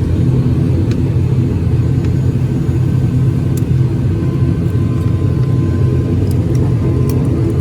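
Steady engine and airflow rumble inside an airliner's cabin, with a few faint clicks near the end.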